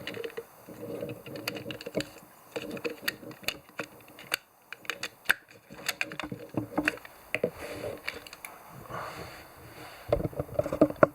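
Irregular clicks and light knocks of small plastic and metal parts being handled while a pachinko machine's firing handle is taken apart.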